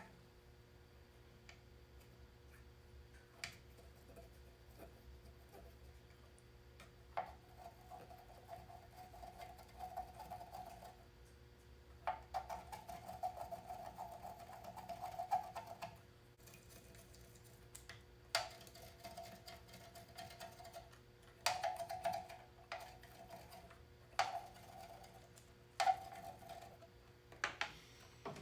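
Hand work on metal parts: intermittent stretches of rubbing and scraping a few seconds each, with scattered sharp clicks, over a faint steady hum.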